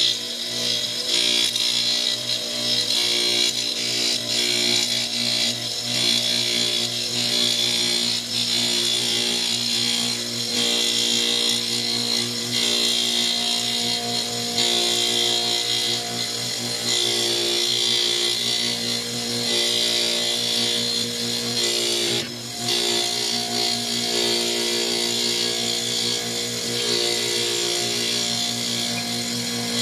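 A flywheel grinding machine resurfacing a car flywheel: the cup grinding wheel spins wet against the turning flywheel face, making a steady grinding hiss over the machine's motor hum. The sound drops briefly about 22 seconds in.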